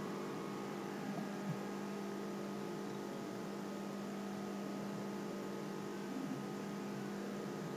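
Steady low electrical hum with a few fainter steady tones above it: mains hum in the recording's background.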